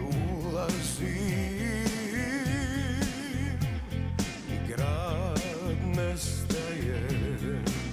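Live band playing a slow ballad, with drums and bass under a wavering melody line with strong vibrato.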